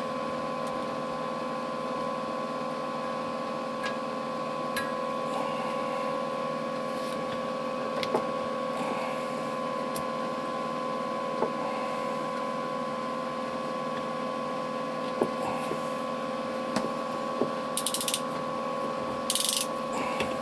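PEX crimp pliers working a crimp ring onto PEX tubing: scattered sharp metallic clicks every few seconds, and two short rasps near the end as the crimp is squeezed home. A steady high-pitched hum runs underneath.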